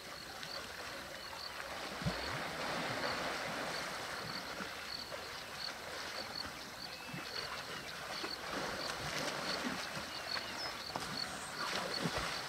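Water sloshing and splashing as African elephant bulls swim and wrestle in a waterhole, with a low thump about two seconds in.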